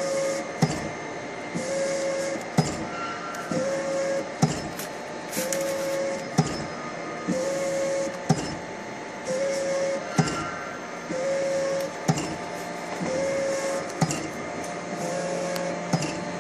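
SAVEMA SVM 53i thermal transfer printer with its feeder and conveyor belt running in a regular print cycle, about once every two seconds: a short whine followed by a sharp click for each pack fed through and printed. Near the end a lower hum joins.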